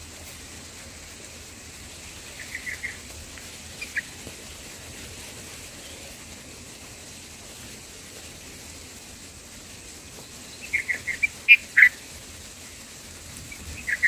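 Short, high bulbul chirps at the nest during feeding: a quick run of three a couple of seconds in, one more shortly after, and a louder cluster of several near the end, over a steady faint hiss.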